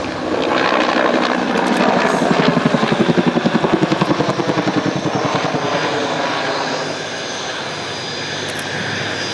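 Bell AH-1 Cobra helicopter flying a display with its two-bladed main rotor beating in a fast, even thud. The beat is loudest from about two seconds in and eases off after about five seconds, leaving a steadier rotor and engine noise.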